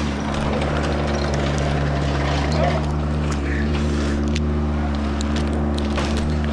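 An engine running steadily at a constant speed, with scattered clicks and knocks over it.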